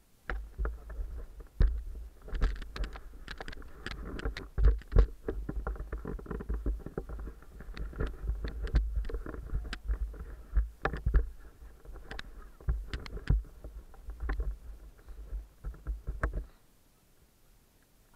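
Handling noise from a body-worn action camera being carried and adjusted: a low, uneven rumble with many knocks and rubbing sounds, stopping near the end.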